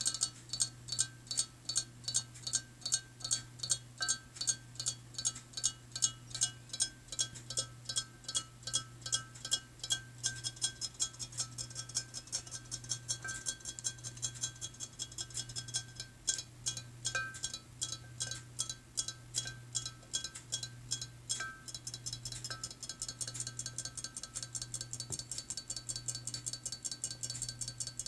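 Battery-powered robot fish toy's tail mechanism ticking steadily, about three or four clicks a second, each click ringing in the cut-glass bowl it swims in, over a low steady hum. The ticks come quicker and softer in the last few seconds.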